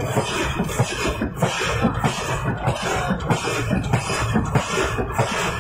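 Pneumatic forging hammer, 2000 kg class, pounding a red-hot ring blank: a rapid, uneven run of heavy thuds.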